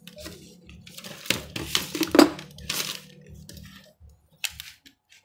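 Cordless hammer drill running with a low steady hum that stops about four seconds in, with several sharp clacks over it.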